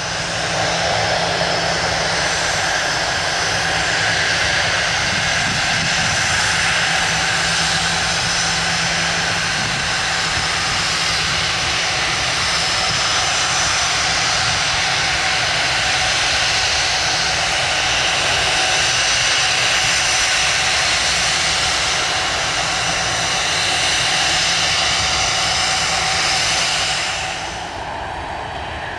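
Jet airliner engines running steadily, a continuous rush with a high whine over it. About two seconds before the end the sound drops and the high whine fades away.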